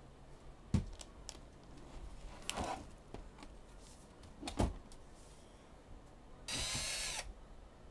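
A few knocks and clicks from handling the opened laptop, then a cordless drill-driver runs in one short whirring burst of under a second near the end.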